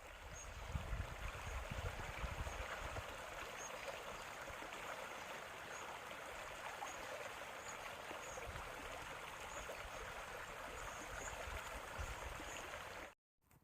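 A stream running steadily, with low rumbles strongest in the first few seconds; it cuts off suddenly just before the end.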